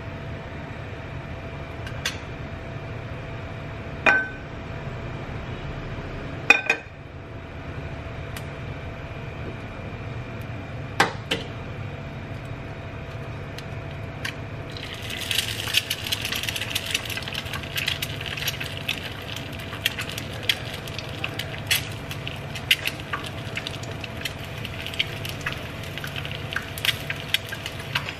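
A few sharp clinks of utensils and a glass lid against a nonstick frying pan, then, from about halfway, an egg frying in hot oil: a steady sizzle full of small crackling pops. A steady low hum sits under it all.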